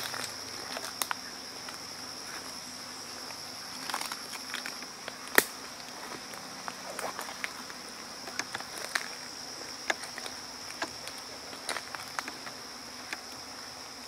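Steady high-pitched drone of insects in the woods, with scattered footsteps crunching on the forest floor; the sharpest step or crack comes about five seconds in.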